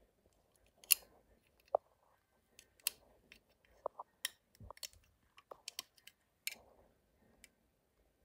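Rubber loom bands being lifted up and over clear plastic loom pegs: scattered small clicks and snaps at irregular intervals as the bands are stretched over the pegs and spring back.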